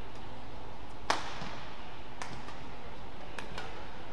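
Badminton rally: racket strings striking a shuttlecock, a sharp crack about a second in, then lighter clicks and taps about a second apart, over the steady hum of a sports hall.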